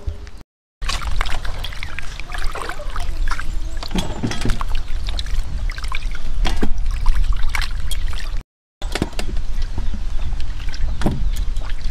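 Water dripping and splashing back into a metal basin as skewered meatballs are lifted out, with the skewers and meatballs clicking and clattering on a metal tray, over a steady low rumble. The sound cuts out completely twice for a moment.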